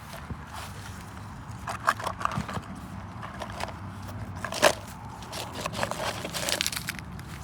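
Dry leaves and twigs crunching and crackling in scattered bursts, with one sharp click a little past halfway through.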